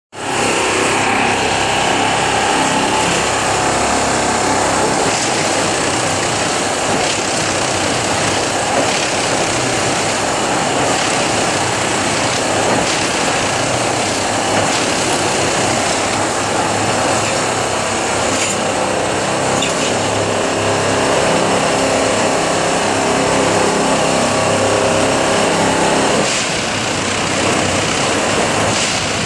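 Plasser & Theurer Unimat track tamping machine at work: its engine and hydraulics run while the vibrating tamping tines work into the ballast to pack it under the sleepers, a loud, steady mechanical din.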